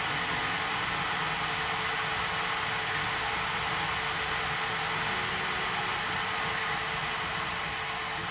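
Hardinge HLV-H toolroom lathe running steadily while turning a small part, a constant whirring hiss with a faint steady hum underneath as the tool cuts and throws off curling chips.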